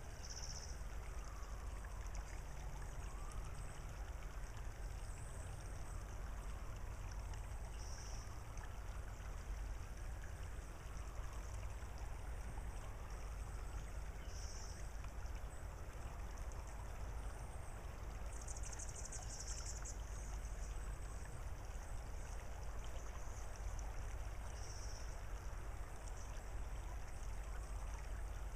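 Shallow tidal creek trickling over gravel, an even hiss over a steady low rumble, with a short high chirp every several seconds and a brief high trill about two-thirds of the way through.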